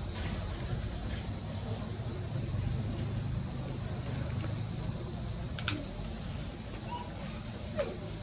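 Steady, unbroken high-pitched insect chorus, with a low rumble underneath.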